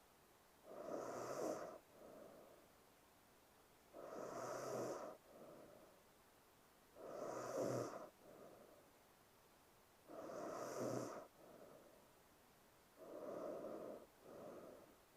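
A woman snoring in her sleep: about five slow breath cycles, roughly one every three seconds, each a louder snoring inhale followed by a shorter, softer exhale.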